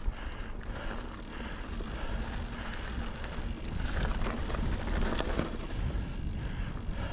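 Santa Cruz Bronson mountain bike rolling along a dirt trail: tyre noise over the ground and wind rumble on the microphone, with a thin steady high whine from about a second in.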